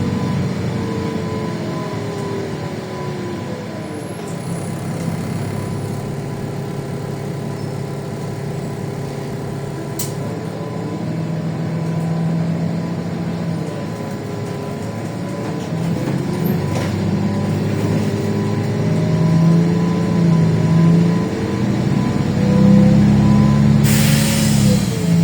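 LiAZ 5292 city bus running under way, its engine note rising and falling and stepping as it accelerates and changes speed. A short hiss of released compressed air comes near the end.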